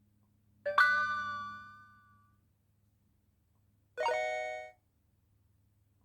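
Two cell phone notification tones in turn: a bright chime about a second in that rings out and fades, then a shorter chord-like tone about four seconds in that cuts off after under a second. A faint low hum runs underneath.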